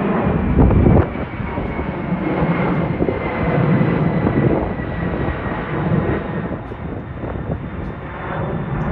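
Airliner engines rumbling as the plane passes, with a faint high whine that slowly falls in pitch.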